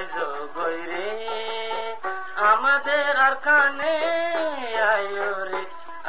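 Background song: a male singer holds long, wavering notes of a melody over instrumental backing.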